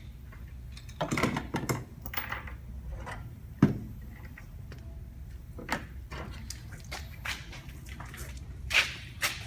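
Scattered light clicks and knocks of the bus's rear door latch parts being handled and worked, a few seconds apart, over a faint low hum.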